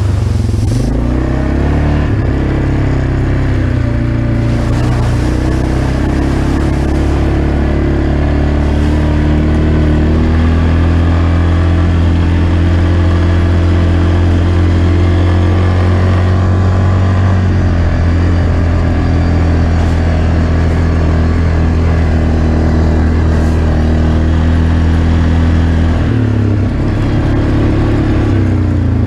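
Yamaha Grizzly ATV engine running under way on a dirt trail, its note climbing as the quad speeds up from about ten seconds in, then easing off a little near the end.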